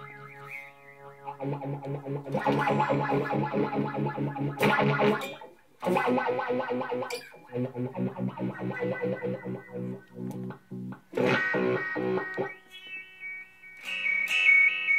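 Electric guitar chords played through a DIY Gristleizer pedal in its voltage-controlled filter mode. The chords are struck several times, and the filter pulses them rhythmically at about four pulses a second. Near the end the filter tone is very resonant.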